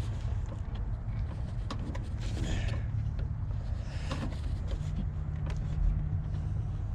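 Small plastic clicks and scrapes from hands working a headlight's electrical connector, pressing its release tabs to unplug it, over a steady low hum.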